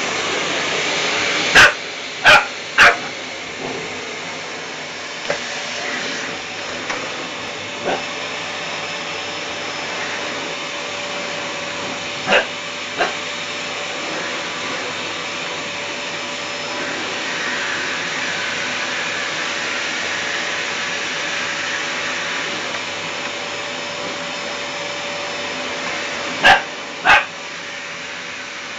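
A vacuum cleaner runs steadily while an 11-week-old Rottweiler puppy barks at it in short, sharp barks. The barks are the loudest sounds: three come in quick succession near the start, two more about halfway through, two near the end, and a few fainter ones fall in between.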